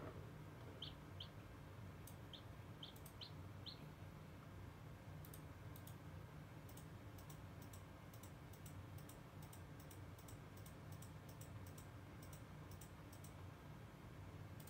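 A newly hatched chicken chick peeping faintly, six short high peeps in the first four seconds. Then comes a run of faint, quick high clicks, over a low steady hum.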